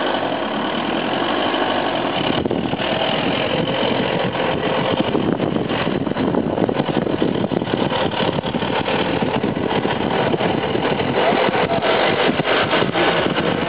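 Car driving slowly, its engine and road noise heard steadily from inside the car's cabin.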